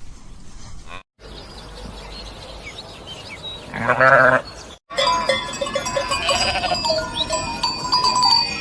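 A single loud bleat from a goat or sheep about four seconds in. After a cut, several bells ring with steady tones over a herd of livestock.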